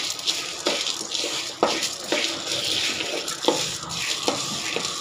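A spatula stirring and scraping roasting dals, coriander seeds and green chillies around a pan with a few irregular scrapes, over a steady light sizzle of the oil.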